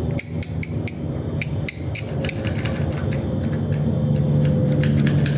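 Low engine hum growing steadily louder, like a motor vehicle drawing near, with rapid sharp high clicks scattered over it.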